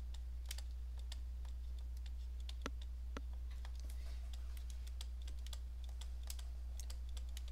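Pen stylus tapping on a tablet screen during handwriting: an irregular run of light ticks, several a second, over a steady low hum.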